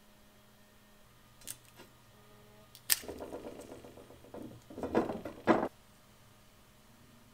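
Handling noises from a bicycle rim being moved about on a plywood bench by gloved hands: a faint click, then a sharp click followed by a few seconds of rubbing and rustling with two louder knocks.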